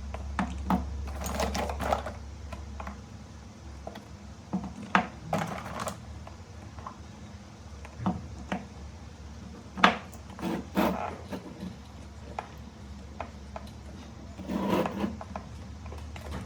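Small hard objects being handled on a work surface: irregular clicks and short bursts of clattering, about four clusters. A low hum underneath stops about three seconds in.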